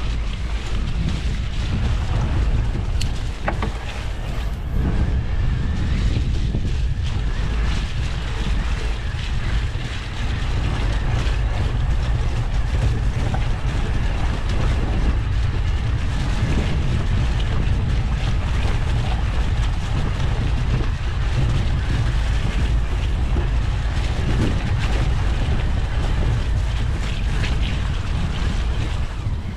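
Steady wind rumble buffeting the microphone of a camera carried on an e-mountain bike as it climbs a track.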